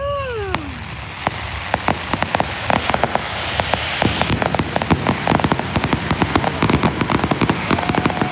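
Fireworks display barrage: a dense, rapid crackling of many sharp pops that thickens after the first second. A falling tone right at the start and a steady held tone near the end sound over it.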